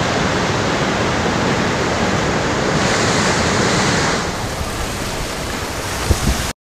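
Muddy floodwater rushing through a culvert and down a swollen creek: a loud, steady rush of water that eases slightly about four seconds in. A couple of low bumps come just before the sound cuts off abruptly near the end.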